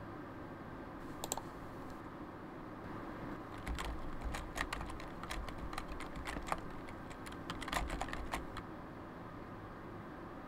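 Typing on a computer keyboard: a single click about a second in, then a quick run of keystrokes lasting about five seconds, with dull thumps from the keys bottoming out.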